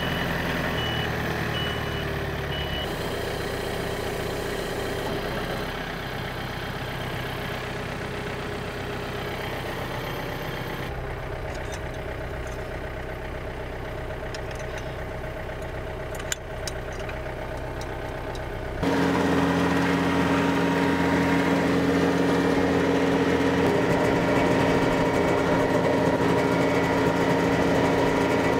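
A John Deere 4044 compact tractor's diesel engine runs steadily, with a faint repeating beep over the first three seconds. A little past halfway it steps up louder, with a steady hum, as the rear PTO-driven Baumalight 3P24 stump grinder runs.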